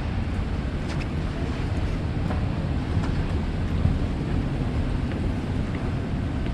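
Steady low rumble with uneven buffeting, like wind on the microphone, with a few faint ticks.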